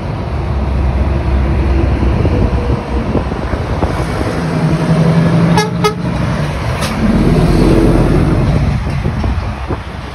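Truck horn sounding over a passing truck's engine, with a long blast a little under halfway through, two short toots just after, and another blast a couple of seconds later.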